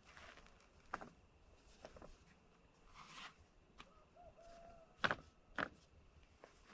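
A few scattered sharp clicks and knocks against a quiet background. The loudest two come about five seconds in, just after a faint short squeak.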